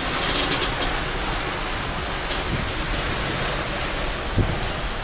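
Sea rushing past the hulls of a Leopard 46 sailing catamaran under way, with wind: a steady hiss of water and wind, and a low thump about four seconds in.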